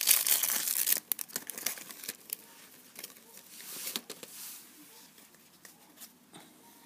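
Plastic cellophane packaging crinkling loudly for about the first second, then quieter rustling and a few light clicks as the deck of cards is handled and pulled out.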